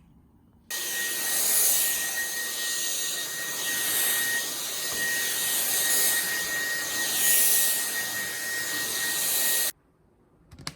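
An electric motor-and-fan appliance running with a steady rushing noise and a thin whine. It starts abruptly just under a second in and cuts off abruptly about nine seconds later, swelling and fading every couple of seconds.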